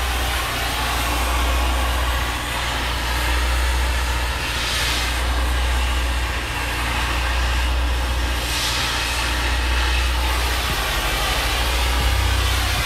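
Oxy-fuel cutting torch hissing steadily as it burns through rusted, seized shock-absorber bolts on a semi truck's rear axle. The hiss swells twice, over a steady low hum.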